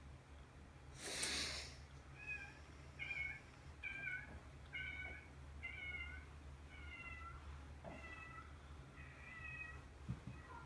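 A cat meowing repeatedly: about eight short, high mews roughly one a second, each falling slightly in pitch. About a second in, a brief burst of hissing noise is the loudest sound.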